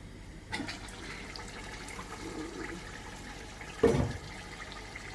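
Chicken in tomato sauce bubbling and spluttering in a pot, with one sharp knock against the pot about four seconds in. The sauce is cooked down until the oil rises to the top, the sign that it is ready.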